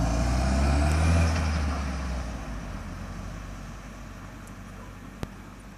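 Audi A3's turbocharged engine running loudly, then letting off as the Forge blow-off valve vents with a hiss, the engine note fading away over about two seconds. A sharp click near the end.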